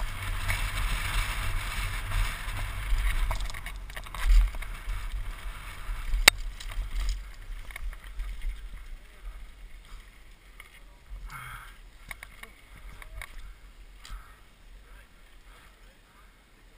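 Downhill mountain bike rolling fast over a gravel trail: tyre rumble and wind buffeting on a helmet-mounted microphone, with a knock about four seconds in and a sharp click a couple of seconds later. The noise dies away as the bike slows to a stop.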